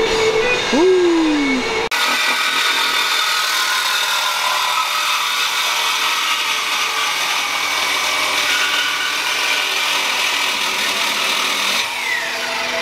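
Corded reciprocating saw cutting through the steel exhaust pipe of a car's exhaust system, a steady, high rasp of blade on metal. The pipe is being cut to remove the mid muffler (resonator) for a mid-muffler delete. The sawing starts abruptly about two seconds in, after a brief steady tone with a falling whine.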